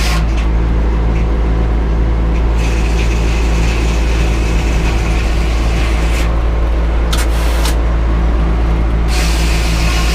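An engine running steadily at an even speed, with a hiss over it that drops away twice and comes back.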